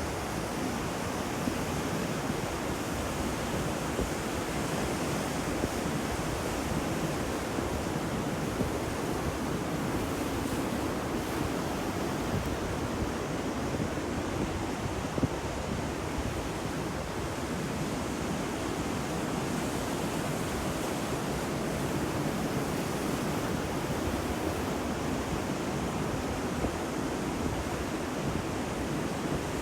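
Sea waves washing on a shore, a steady rush of surf with no individual breakers standing out, and a short tick about halfway through.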